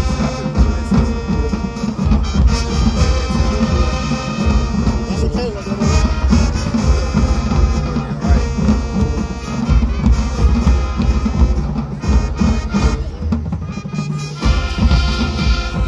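High school marching band playing: brass with sousaphones on the bass line over a drumline with pounding bass drums. The low end drops back for a moment near the end and then returns.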